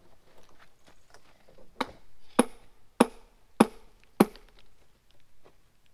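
Hammer striking the steel wedges set in a granite block to split it: five sharp, ringing metal-on-metal blows about every half second, starting about two seconds in, the first lighter than the rest.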